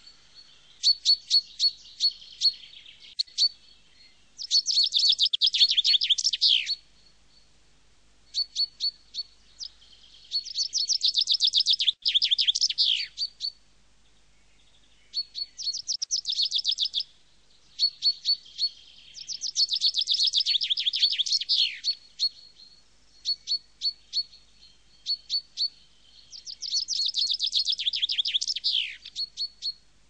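A songbird singing: strings of quick, high, separate notes that build every few seconds into a dense fast trill ending in a falling sweep.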